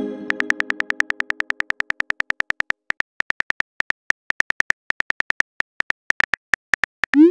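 Simulated phone-keyboard typing clicks in a rapid run, several a second, over the fading tail of a musical chime in the first second or so. Near the end comes a short rising swoosh: the message-sent sound.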